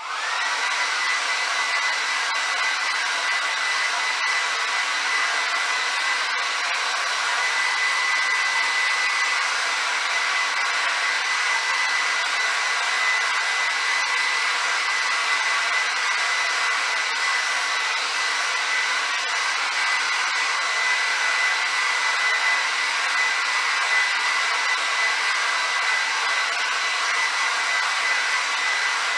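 Handheld hair dryer switched on and running steadily, blowing over a freshly spray-painted paddle to dry the paint: an even rush of air with a thin, steady high whine over it.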